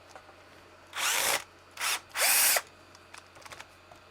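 Cordless power driver running in three short bursts, its motor spinning up and down, as it backs out screws. The first burst comes about a second in, and the other two follow within the next second and a half.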